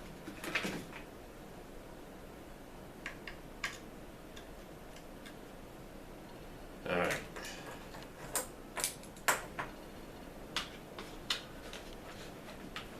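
Handling noise from working on a rifle stock and the stud with small tools: scattered sharp clicks and light taps, a few at first and more of them in the second half.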